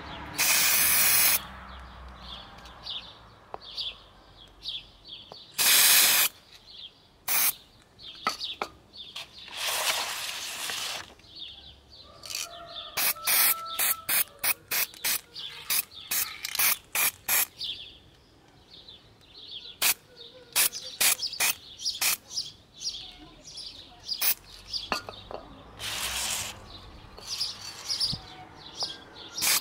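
Aerosol can of silver spray paint spraying in bursts: a few lasting about a second and many short puffs between them.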